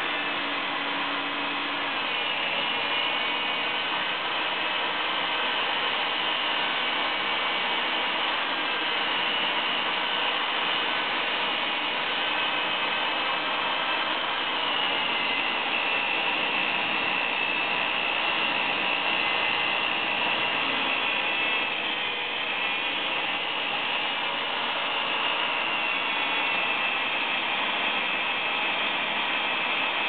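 Corded electric twist drill boring into a tubular lock cylinder, the motor running continuously with a whine that wavers slightly in pitch as the bit bites into the metal.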